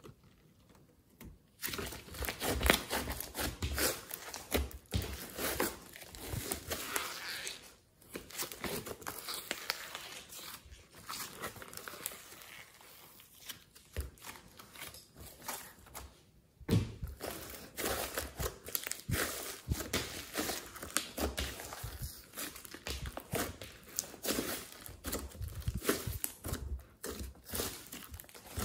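Thick glossy slime mixed with clay being stretched, folded and pressed by hand, giving sticky crackling and clicking, with a few short pauses.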